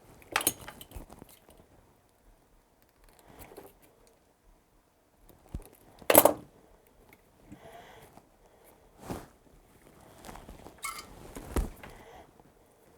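Scattered sharp clicks and knocks of tools and small parts being handled on a workbench while tinning mic-cable wire ends for soldering. The loudest knock comes about six seconds in, with a few lighter taps and a little scraping in between.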